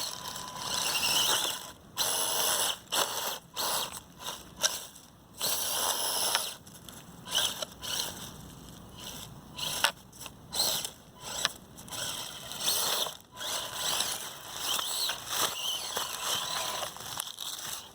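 Axial SCX24 Deadbolt micro RC crawler's brushed electric motor and gear drive whirring in short stop-start bursts with brief pauses between, as it is driven over rock.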